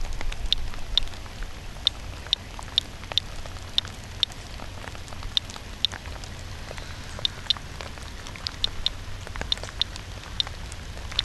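Radiation Alert Inspector Geiger counter's audio clicking at irregular, random intervals, about two short high clicks a second, each a count of background radiation at a reading of about 0.35 µSv/hr. Light rain patter and a low rumble lie underneath.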